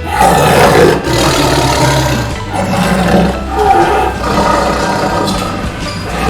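Tiger roaring and growling in several loud surges, with background music underneath.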